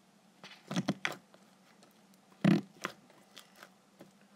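Homemade slime squeezed and pressed in its box, giving several short wet squelching pops, the loudest about two and a half seconds in; the box is too big for the slime to pop well.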